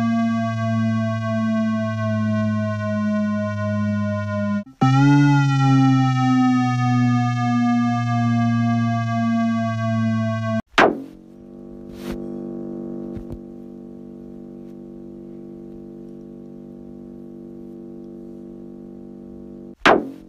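Distorted electronic tones with many overtones, each held and sliding slowly down in pitch. It cuts out about a quarter of the way in and restarts with a short upward bend. About halfway through there is a sudden sharp break into a quieter, steady lower drone, with another sharp click near the end.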